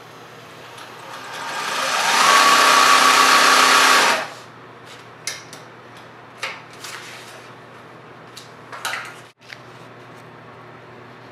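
A small electric motor spins up over about a second, runs steadily for about two seconds, and stops abruptly, followed by a few scattered clicks and knocks.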